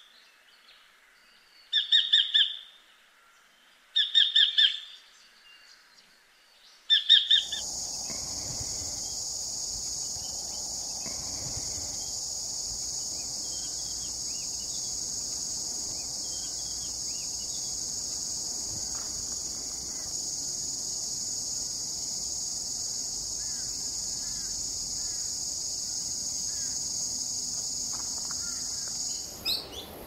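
Sacred kingfisher calling in three quick bursts of rapid repeated notes, about two seconds apart. Then, from about seven seconds in, a steady high-pitched drone takes over, with faint chirps of other birds.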